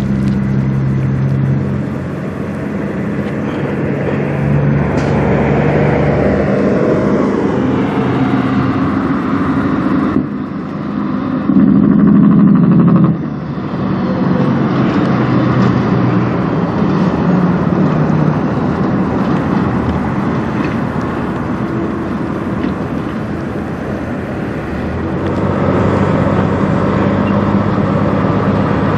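Peterbilt diesel semi-truck pulling a loaded trailer. Its engine note steps up and down as it works through the gears, is loudest when it passes close about twelve seconds in, and swells again near the end as it rolls slowly toward the microphone.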